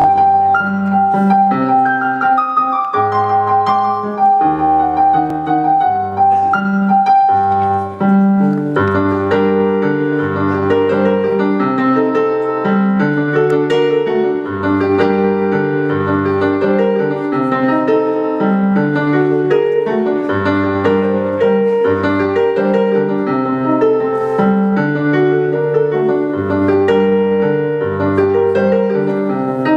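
Piano playing a song's instrumental introduction: low chords in a steady repeating pattern, with a long held high note over the first several seconds and a busier melody above the chords from about eight seconds in.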